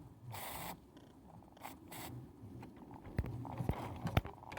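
Small Meccano model steam engine running on steam, with bursts of steam hiss and sharp irregular clicks and knocks from about three seconds in. It is running rough, not sounding well.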